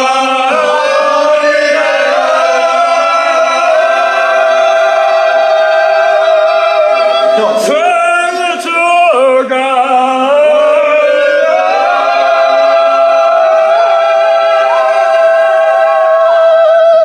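Singing voice holding long, steady notes, with a short break and sliding pitch about eight seconds in, then more held notes that cut off abruptly at the end.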